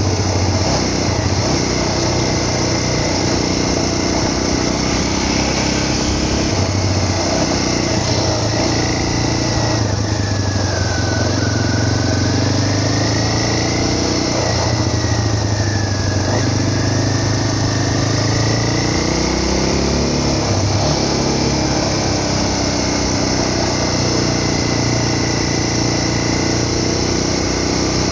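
A small vehicle engine running steadily at moderate speed, its pitch easing down and back up a little now and then, with a faint high whine that dips and rises midway.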